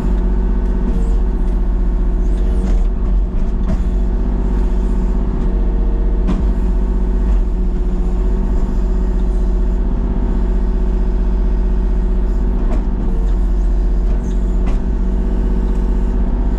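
Tractor engine running steadily at constant speed, with a few short knocks and clanks scattered through.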